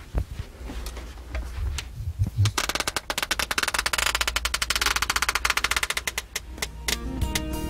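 Foley sound effects performed live with hand props: a few scattered knocks, then a fast, even clatter of sharp strikes for about four seconds. Music starts near the end.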